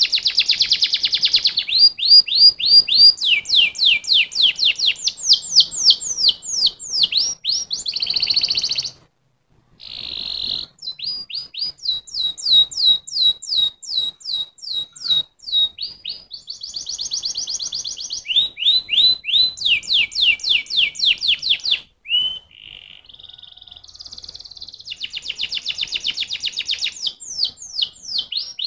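Domestic canary singing a long song of fast trills. Each trill is a quick run of one repeated note, often a sweep falling in pitch, and the bird switches to a new note every second or two. There is a brief pause about nine seconds in and a softer passage a little past twenty seconds.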